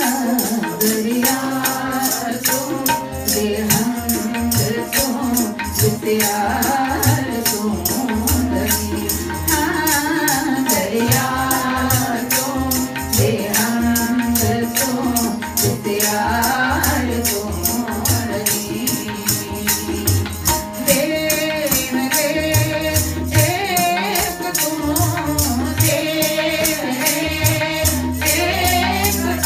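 A woman singing a devotional song over a steady, fast rattling beat of hand percussion and a drum.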